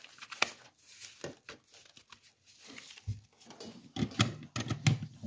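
Handling noise from a brush-plating setup: scattered clicks and taps with light rustling as the plating probe's lead is plugged in and its wires are moved about, with a denser run of knocks about four seconds in.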